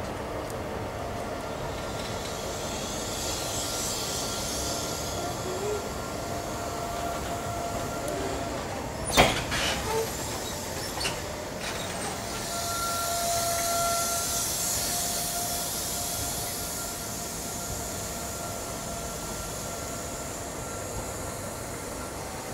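InterCity 125 (HST) Mark 3 coaches rolling past along the platform, a steady rumble of wheels on rail. A single sharp knock comes about nine seconds in, followed by a few lighter ones. A thin steady whine is heard for a few seconds past the middle.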